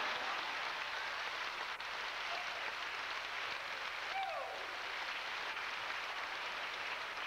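Audience applause and crowd noise from the stands of an outdoor show arena, with a short falling whistle about four seconds in.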